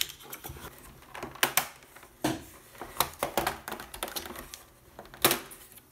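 Hard plastic clicks and knocks from a Roborock S7 robot vacuum's lid and cover panels being handled and lifted off by hand. There are several sharp separate clicks, the loudest about five seconds in.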